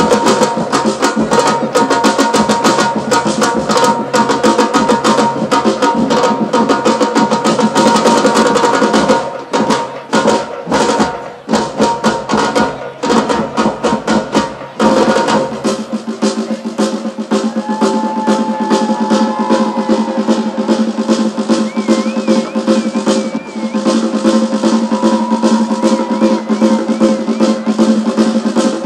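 Batucada samba drum ensemble playing a fast, dense rhythm on bass drums and snare drums. About a third of the way in it breaks into a stretch of separate hits and short pauses, then picks up again with rolling snares and less bass.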